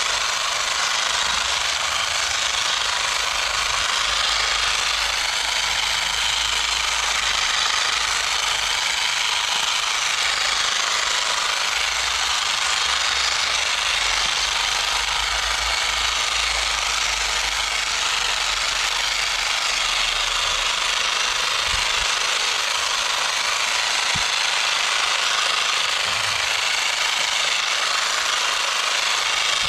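Small electric garden tool running without a break as it cuts and scrubs at weeds, a steady rough whir.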